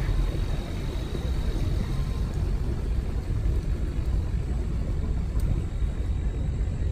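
Small river shuttle boat's motor running with a steady low rumble, heard from on board as the boat comes in alongside a pier.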